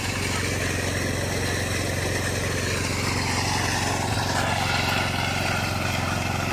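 Concrete power trowel running steadily on a fresh slab, its engine holding an even drone.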